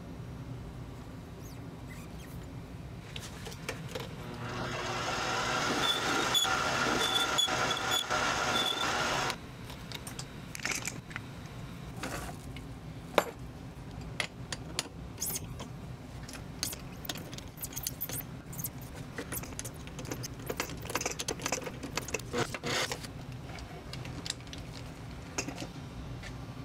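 Mini metal lathe motor and spindle running with a steady whine that builds up over a couple of seconds, runs for about five seconds, then cuts off suddenly. After that comes a long run of scattered sharp metallic clicks and clinks from hand work at the chuck while threads are tapped into the bolt head and the tap is drawn out.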